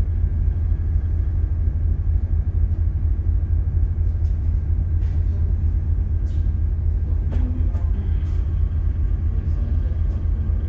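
Steady low rumble of a ship underway, its engine and machinery vibration carried through the bridge, with a few faint clicks.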